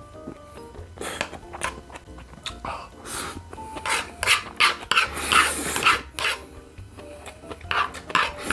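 A person slurping ramen noodles and broth in a run of short, breathy slurps, loudest in the middle, over faint background music.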